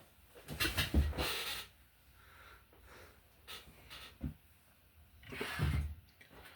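Two heavy breaths or sighs close to the microphone, one about half a second in and one near the end, with a few small clicks between them.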